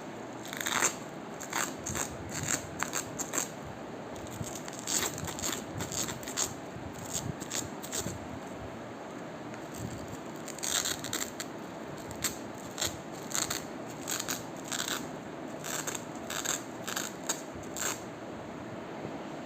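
Crisp crunching and crackling from crunchy material being squeezed and handled: irregular quick clusters of snaps, over a faint steady background hiss.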